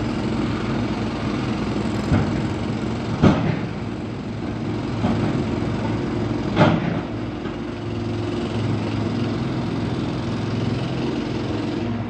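Heavy construction machinery engines running steadily, with four sharp bangs of concrete blocks being dropped; the loudest come about three seconds and six and a half seconds in.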